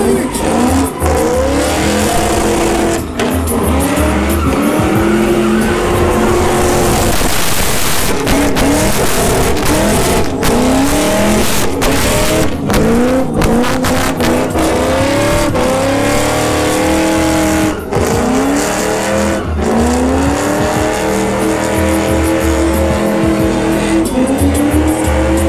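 A car drifting in circles with its tires spinning and squealing. The engine revs climb again and again, rising in pitch and dropping back each time.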